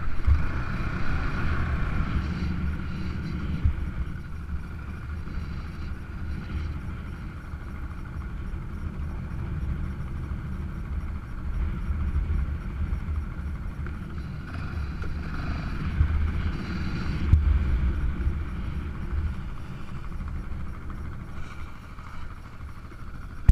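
Yamaha Raptor 700 ATV's single-cylinder engine running as the quad is ridden over sand, with a low rumble that swells and fades.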